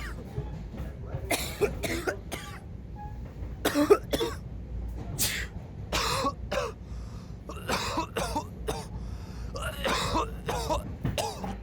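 A person coughing repeatedly in short fits of two or three coughs, with throat clearing.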